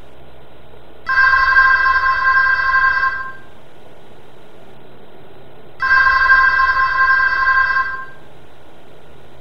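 Telephone ringing: two rings of about two seconds each, a little over two seconds apart.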